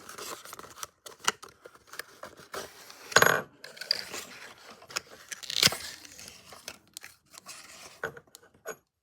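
Hands handling a yo-yo and its packaging: a run of small clicks, taps and scrapes, with two louder clatters about three seconds in and near six seconds in.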